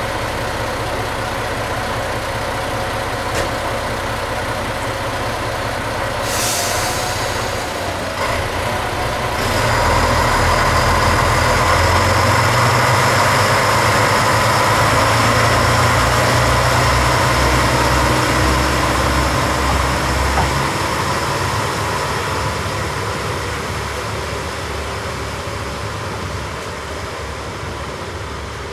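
KTR001 Tango Explorer diesel railcar engines idling, with short hisses of air about six and eight seconds in. From about ten seconds in the engines run louder as the train pulls away, then fade as it departs.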